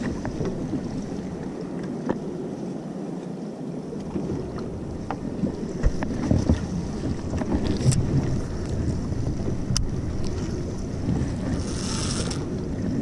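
Wind buffeting the microphone over water lapping against a small boat's hull, with a few sharp clicks and knocks scattered through.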